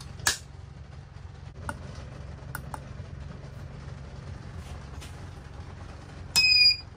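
A sharp click just after the start as the wiring is switched, a few faint ticks over a steady low hum, then a 1500 W 12 V power inverter beeping once for about half a second as it is switched on.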